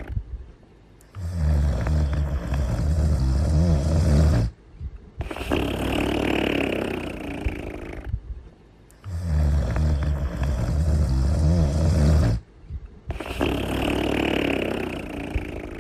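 A cartoon character snoring. Each breath is a long, low, rumbling in-breath snore followed by a higher, wheezy out-breath, with short pauses between. The full cycle repeats twice.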